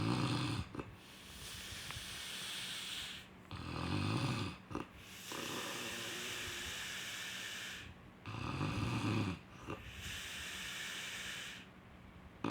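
Snoring in a steady cycle about every four seconds: a low rattling snore, then a longer, airy, hissing breath.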